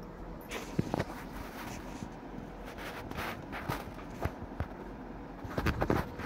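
Cloth rustling and handling noise as a stitched embroidered suit is moved about and filmed up close: irregular soft rustles and clicks, busier near the end.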